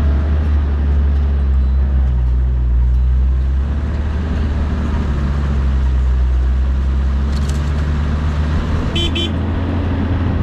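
A 4WD driving slowly along a sandy bush track, its engine running in a steady low drone whose pitch shifts slightly about halfway through. There are two short high chirps near the end.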